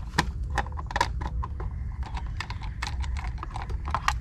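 Irregular light clicks and knocks, a few a second, as the heating-element access cover of a Dometic RV water heater is worked loose and handled.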